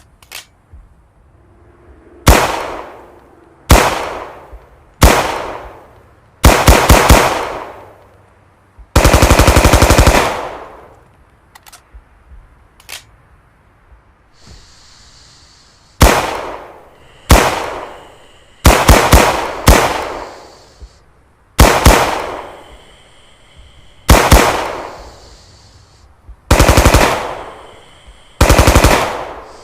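M1928 Thompson submachine gun firing .45 ACP in single shots and short bursts of two to five rounds, with one longer full-auto burst of about a second some nine seconds in. Each shot is very loud and trails off in an echoing tail.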